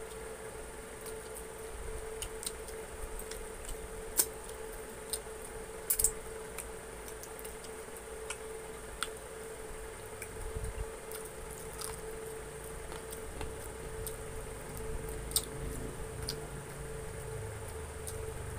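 Close-up eating sounds of chicken wings being eaten by hand: wet chewing, lip-smacking and sucking meat off the bones, with a few sharp clicks. A steady faint hum runs underneath.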